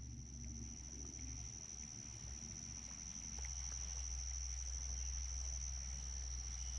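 Insects trilling in one steady, unbroken high-pitched tone, with a low rumble underneath that grows a little about three seconds in.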